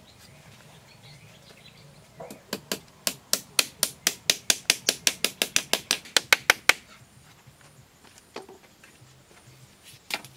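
A rapid run of sharp knocks, about six a second for four to five seconds starting about two seconds in, from a tool striking bamboo. A few single knocks follow, the last near the end.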